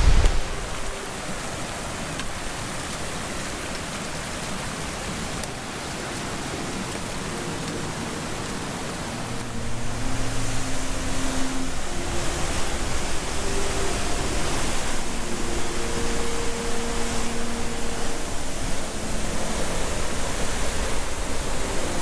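Steady rushing roar of a river in full spring-snowmelt flow and its waterfall, louder from about ten seconds in.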